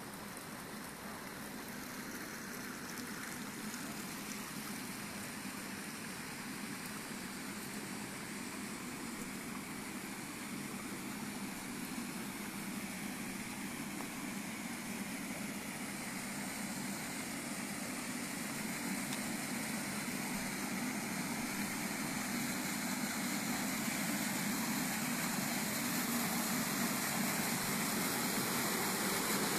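Running water: a steady rush that grows gradually louder.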